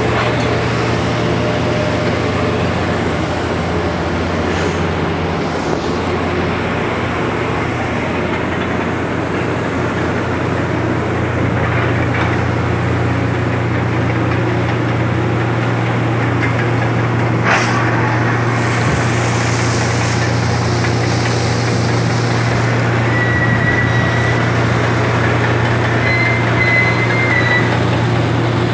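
Heavy loading machinery running steadily: a constant low hum under a dense mechanical rattle, with one sharp knock partway through and a faint high tone near the end.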